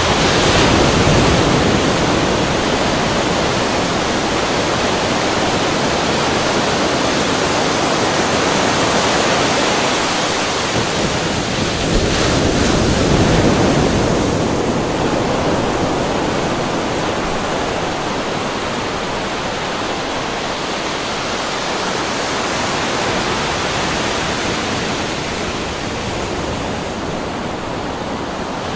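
Steady rushing of ocean water, like surf, swelling and easing slowly.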